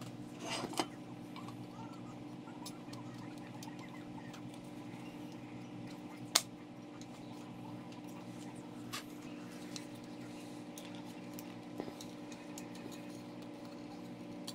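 A few light clicks and taps of painted sheet-metal accessory parts being handled and fitted together, with one sharp click about six seconds in, over a steady low hum.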